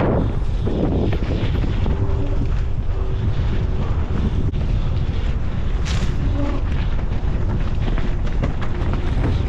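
Heavy wind buffeting a GoPro microphone as a mountain bike rides downhill at speed. Occasional sharp knocks and rattles from the bike on rough trail, the clearest about two-thirds of the way through.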